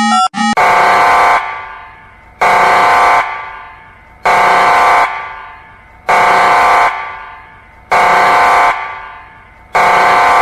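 Alarm horn sounding six short, loud blasts, about one every two seconds, each dying away in a long echo.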